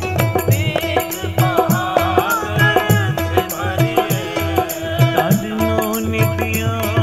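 Sikh Gurbani kirtan music: harmonium tones held over a steady tabla beat, with a voice gliding through a melodic phrase in the middle.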